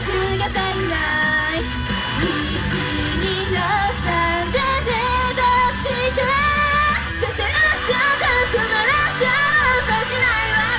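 Idol group song performed live: singing over loud pop-rock music with a steady bass.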